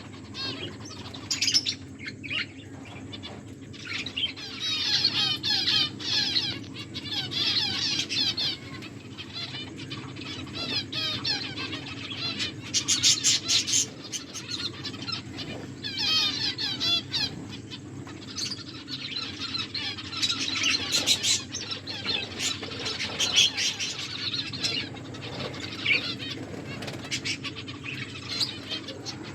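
A flock of pet finches chirping constantly, many short high calls overlapping, with bursts of wing fluttering now and then. A steady low hum runs underneath.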